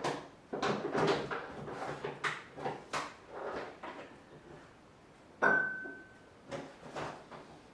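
Someone rummaging through items off-camera: a quick run of clattering and rustling handling noises, then a pause and a single sharp knock that rings briefly, as something hard is set down or struck. A few more handling knocks come near the end.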